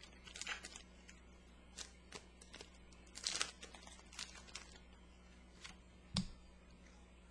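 Faint crinkling and tearing of a foil trading-card booster pack wrapper being opened by hand, as scattered short crackles over a mostly quiet stretch.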